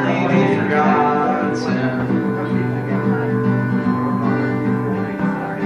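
Live acoustic guitar music from a small stage, with long held notes.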